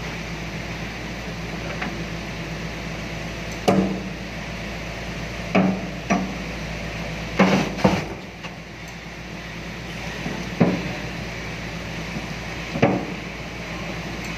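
Excavator engine running steadily, with about eight sharp metal knocks at uneven intervals as its bucket presses down on a solid tyre to force it onto the rim.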